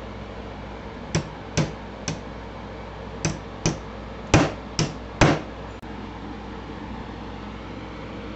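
Eight sharp hammer blows over about four seconds, the hardest near the middle, straightening the bent steel headlight bracket.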